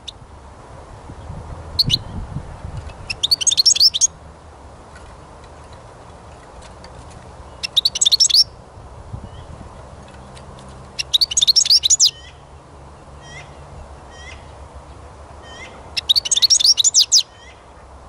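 European goldfinch singing: four bursts of rapid, high twittering about a second long each, with short single call notes in between.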